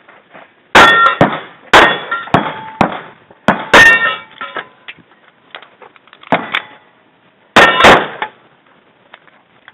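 Kimber 1911 pistol firing: five sharp shots spread out, the last two in quick succession near the end, each followed by the ringing clang of struck steel targets.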